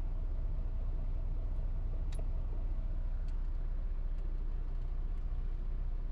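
Steady low engine rumble heard inside a semi-truck cab, with a couple of faint clicks about two and three seconds in.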